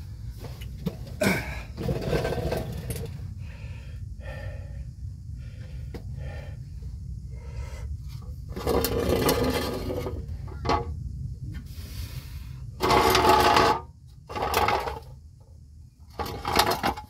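Irregular metal clinks, knocks and scrapes of a transmission sump pan and its bolts being handled, over a steady low hum. Several louder rustling bursts come about 9 s and 13 s in.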